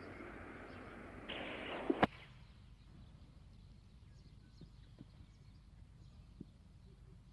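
Cricket crowd applauding and cheering a six, swelling briefly and ending in two sharp cracks about two seconds in, after which it cuts off abruptly. Then quiet ground ambience with a few faint knocks.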